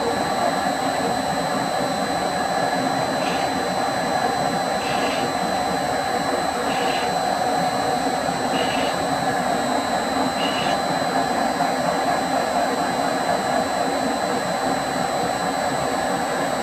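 HiPower metal lathe running steadily, spinning a large faceplate-mounted workpiece, with a constant machine hum and a faint light tick roughly every two seconds.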